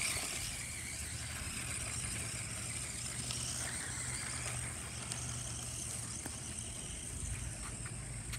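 Small electric motor of a toy radio-controlled monster truck running with a steady high whine as the truck drives over grass.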